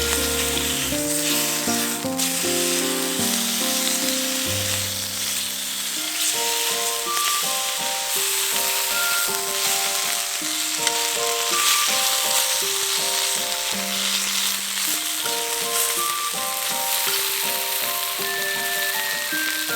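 Food frying with a steady sizzle, under background music with a gentle melody.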